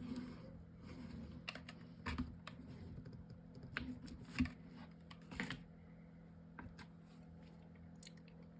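Light, irregular taps and clicks of chipboard and paper craft pieces being handled and pressed together during hot-glue assembly, a few sharper ones about two, four and a half and five and a half seconds in, over a faint steady hum.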